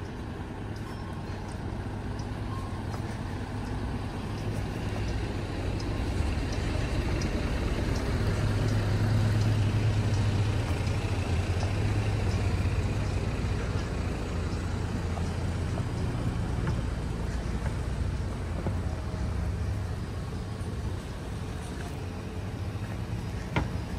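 A large motor vehicle passing on the street: a low engine hum that swells to its loudest about ten seconds in, then slowly fades. A sharp click comes near the end.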